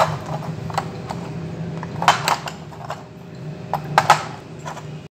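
LED bulbs being handled on a wooden table: a string of light clinks and knocks as they are picked up, set down and bumped together, the loudest clusters about two and four seconds in. A low steady hum runs underneath.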